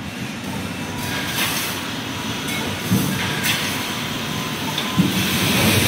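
Wire mesh welding line running: a steady mechanical noise with sharp metallic clanks at uneven intervals, a few of them louder.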